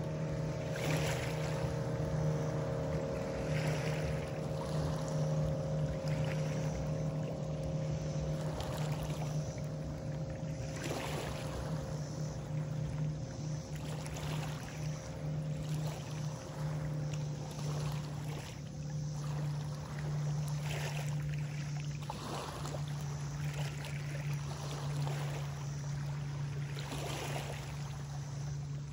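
Steady low drone of a boat engine out on the water, with a higher hum over it that fades out about halfway through.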